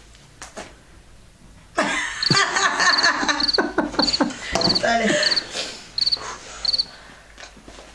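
Two women laughing, starting about two seconds in, while a cricket chirps at about two short pulsed chirps a second.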